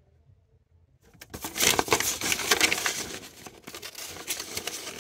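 Close rustling and crinkling handling noise, a dense run of small crackles that starts about a second in and eases off toward the end.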